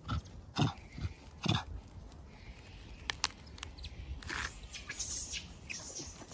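Rhesus macaque handling and biting into Napa cabbage leaves: a few short, sharp crunching and rustling sounds, spaced irregularly, with a brief hissy leaf rustle just after the middle.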